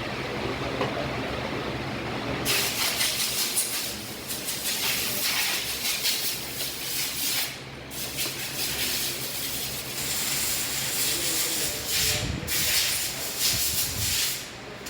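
Bajaj Dominar 400's single-cylinder engine running with the bike on the move: a steady low engine hum under loud wind and road hiss, which sets in about two seconds in and drops away briefly a few times.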